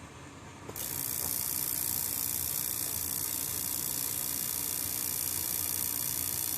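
Direct-spark igniter on a gas furnace arcing to the grounded burner box. It makes a steady, high-pitched hiss that starts abruptly about a second in.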